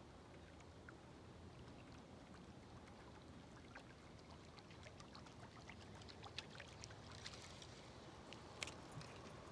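Near silence: quiet pond-side ambience with a low hiss and faint scattered ticks and light water sounds that grow busier past the middle.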